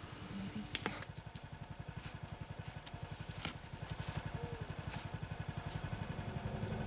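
Vehicle engine idling with a steady, rapid low throb that grows a little louder near the end.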